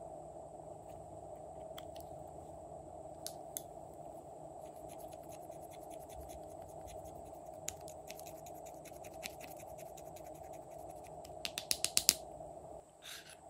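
A small tool scraping powder eyeshadow out of a plastic compact, a run of fine scratching strokes, then a quick run of sharper taps near the end, over a steady background hum.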